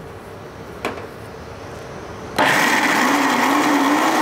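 A light knock about a second in, then a countertop blender switches on abruptly about two and a half seconds in and runs steadily at full speed, its pitch wavering slightly as it churns thick cooked beans and water into a puree.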